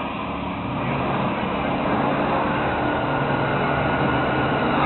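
Engines of two drag-racing cars running hard down the strip, a steady drone with no break.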